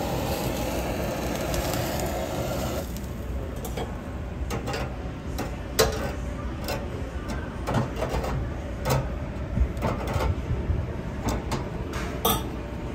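A handheld butane blowtorch hisses as it sears pork slices, then stops about three seconds in. After that, metal tongs clink and tap again and again against the wire rack and stainless steel tray as the slices are moved.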